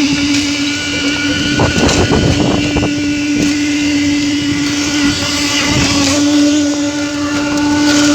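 Engine of a construction machine running steadily with a constant hum. A burst of clattering knocks comes about two seconds in.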